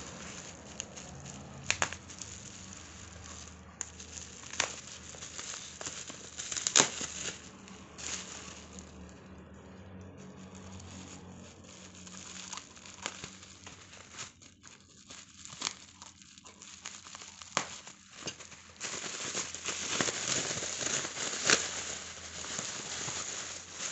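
Plastic bubble-wrap packaging crinkling and rustling as it is unwrapped by hand, with scattered sharp clicks. The crinkling grows denser and louder near the end.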